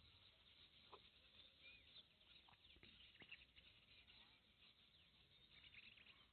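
Near silence: faint room tone with a few faint bird chirps and small ticks in the background.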